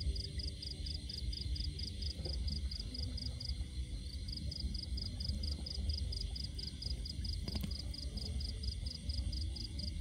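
Cricket chirping in a steady rapid pulse, about five short high-pitched pulses a second, over a constant low rumble.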